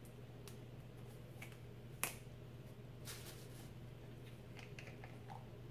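Faint scattered clicks and taps of a small plastic cleanser bottle being handled, with one sharper click about two seconds in and a few quick ones about a second later, over a low steady hum.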